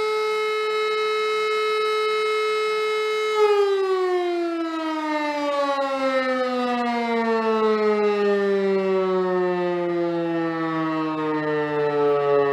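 DS 977 East German electric motor siren sounding a test alarm: a loud, steady tone that, about three and a half seconds in, begins a long falling glide as the siren winds down.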